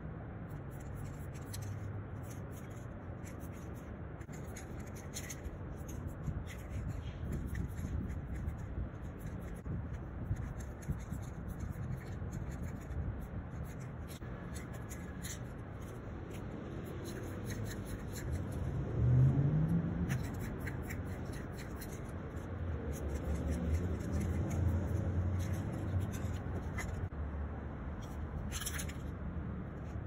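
Aerosol spray paint can hissing in short on-and-off bursts over a low rumble of city traffic. About two-thirds of the way in, a vehicle engine rises in pitch as it accelerates past; this is the loudest moment.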